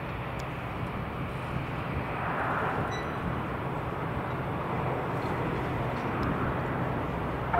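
Distant jet aircraft noise: a steady rumble with a constant low hum beneath it, swelling slightly about two to three seconds in.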